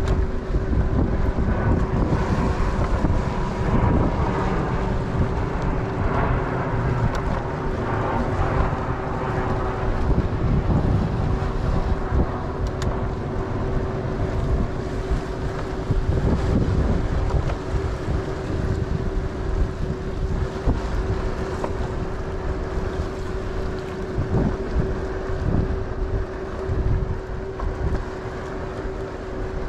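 Wind buffeting the microphone during a ride on a Bird electric scooter, a dense, uneven rumble. Under it runs a steady whine at one constant pitch, consistent with the scooter's hub motor at cruising speed.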